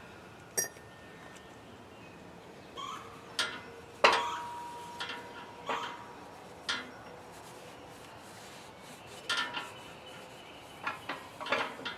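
Scattered metal clinks and knocks as threaded brass pipe spacers are handled and set on the cast-iron engine block; the loudest knock, about four seconds in, leaves a ringing tone for about two seconds.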